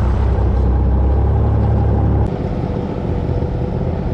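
Boat engine running under power, with a deep low drone that drops away about two seconds in, leaving a lighter steady engine sound.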